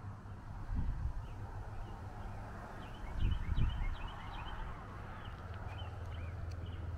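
Songbirds chirping in short, quick high calls from about two and a half seconds in. Under them runs a low rumble of wind on the microphone, with two stronger gusts, about one second in and about three and a half seconds in.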